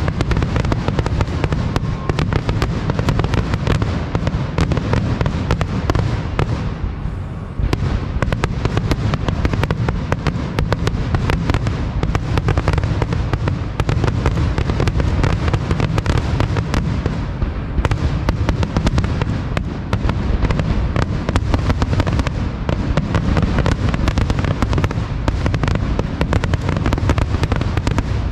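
Fireworks display: a dense, continuous barrage of booming shells and crackling, with a brief lull about seven seconds in.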